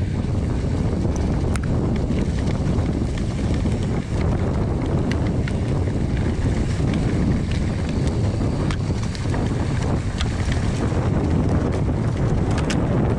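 Wind rushing over the camera's microphone as a downhill mountain bike rolls down a dry dirt trail, with a steady low rumble and scattered sharp clicks and rattles from the bike.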